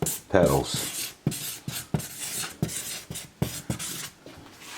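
Writing by hand on a cardboard box: a run of short scratching strokes and taps, several a second, trailing off near the end.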